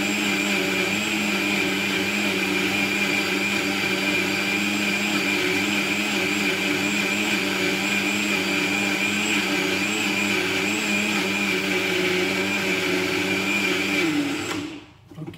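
Countertop jug blender running steadily, puréeing cooked lentil soup, with a steady motor hum and a high whine; it is switched off near the end and the sound dies away.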